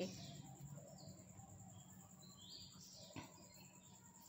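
Near silence: faint room tone, with a few faint high chirps and a soft click about three seconds in.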